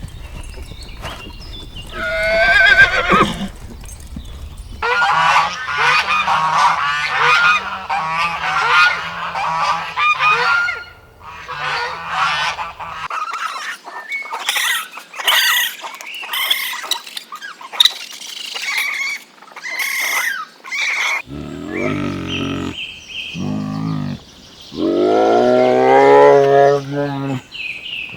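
Geese honking, many short calls overlapping, in several joined clips; near the end come lower, longer calls.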